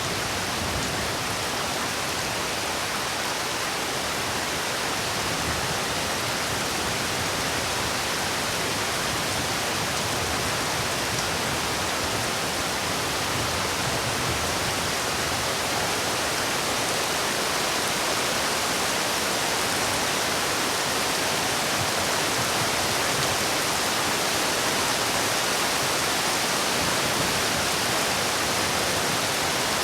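Heavy rain falling steadily, a dense even hiss with no separate drops or other sounds standing out.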